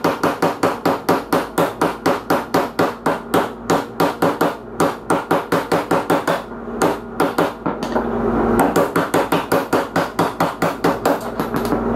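Hammer blows, about four a second, on a socket set against the top spindle bearing in a Gravely ZTX42 zero-turn mower's front caster, metal striking metal to drive the old bearing out of its housing. The strikes break off briefly a couple of times past the middle, then resume.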